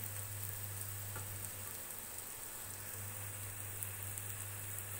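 Chopped onions sizzling steadily in hot oil in a kadhai. The onions are part-way through frying, just starting to turn pink.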